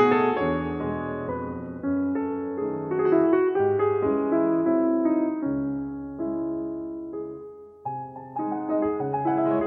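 Background piano music: slow, soft chords and melody, with a brief lull about eight seconds in before the chords return.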